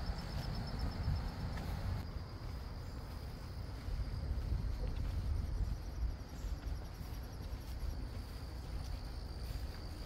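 Insects trilling steadily at a high pitch in fast, even pulses, over a low rumble.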